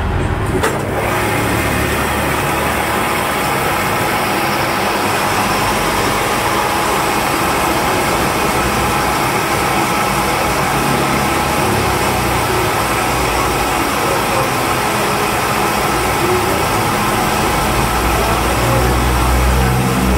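Milling machine running with a spiral end mill cutting into an aluminium piston crown, milling a clearance pocket: a steady, dense cutting noise over the machine's hum.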